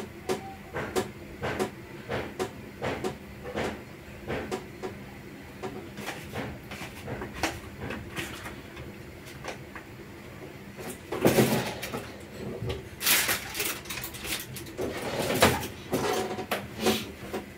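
Kitchen handling sounds at the counter: a string of small knocks and clicks as things are picked up and set down, with louder scraping and clattering stretches about eleven seconds in and again from about thirteen to sixteen seconds.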